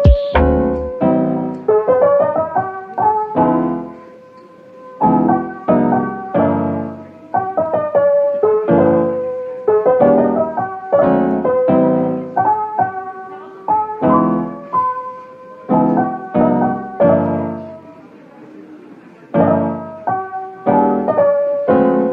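Background music led by piano: a gentle melody over chords struck one after another, softening briefly twice.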